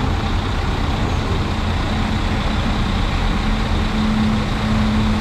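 Regional trains at a station platform: a steady low rumble with a constant hum that grows louder about four seconds in as a red regional train pulls in.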